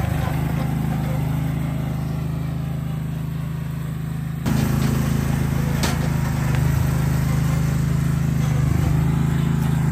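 Riding lawn mower's small engine running at a steady speed. It gets suddenly louder about four and a half seconds in, and there is one faint click a little later.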